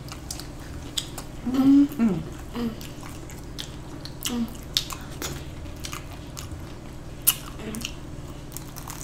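Close-miked chewing and biting of cheese-sauce-soaked hard-shell tacos: scattered sharp crunchy clicks and wet mouth sounds, with one louder click about seven seconds in. A short hummed 'mm' comes about two seconds in.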